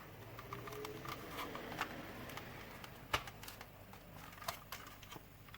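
Scattered light clicks and taps of hard plastic parts being handled and pushed together by hand, the sharpest about three seconds in.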